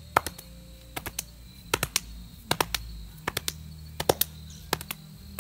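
Hands slapping the shirt and appendix holster at the waist in quick pairs, about seven times, roughly one pair every three-quarters of a second. Each pair is the garment hand landing just before the gun hand in a practice draw.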